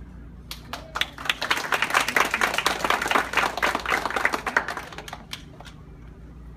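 An audience clapping: it starts about half a second in, builds to a dense patter of claps, and dies away after about five seconds.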